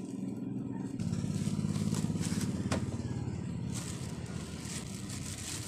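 An engine running steadily, growing louder about a second in and fading after a few seconds, with a sharp click midway. Plastic wrapping crinkles near the end.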